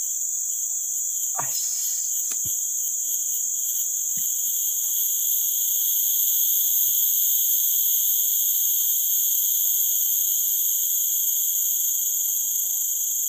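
A loud, steady drone of insects, shrilling at several high pitches at once without a break. Two faint knocks come about one and a half and two and a half seconds in.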